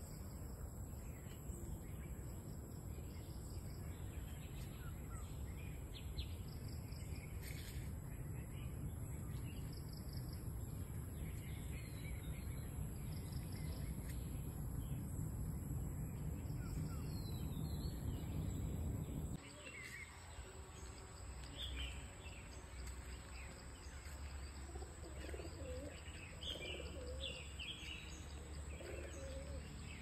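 Wild birds chirping and calling over a steady high-pitched insect drone and low outdoor background noise. About two-thirds of the way through the background drops and the bird calls become clearer and more frequent.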